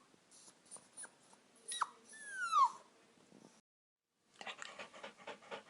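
A dog whimpering: a short whine about two seconds in, then a longer, louder whine that falls in pitch. Near the end a run of quick, faint noises begins.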